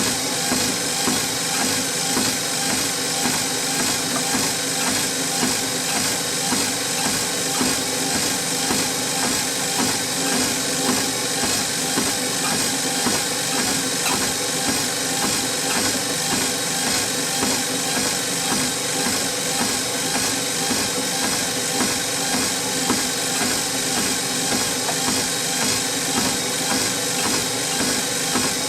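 Treadmill running steadily with someone walking on it: the motor's hum and the belt's hiss, with a regular rhythm of footfalls on the deck.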